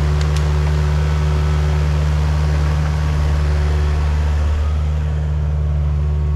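Excavator's diesel engine running steadily at constant throttle, dipping slightly in level about five seconds in.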